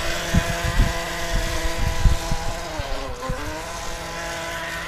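Motor of a small radio-controlled speedboat whining steadily under throttle as it runs across the water. The pitch dips briefly about three seconds in, comes back up, and the motor cuts off at the end.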